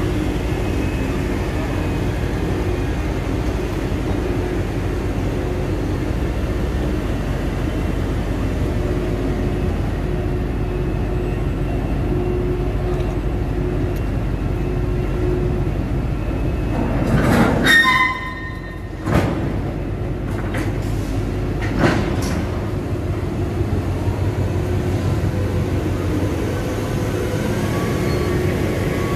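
Steady low mechanical rumble and hum of container-terminal machinery: a gantry crane handling a container and a tractor hauling a container on a trailer. A little past halfway comes a brief loud clatter with a short high tone, then a few separate knocks.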